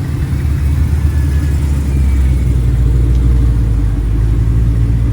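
2011 BMW M3's S65 4.0-litre V8 on its stock exhaust, running at a steady pace on the move: an even, low engine hum that holds level throughout.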